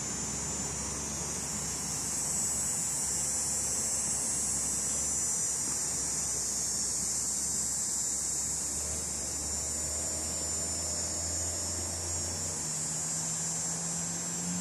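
Steady high-pitched drone of insects in the summer trees, over the low hum of a vehicle engine that rises in pitch near the end as it passes.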